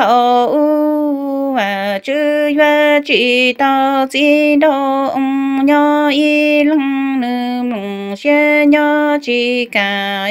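A woman singing Hmong kwv txhiaj, a chanted sung poem of blessing, unaccompanied: long held notes that waver and bend at their ends, with short breaks for breath between phrases.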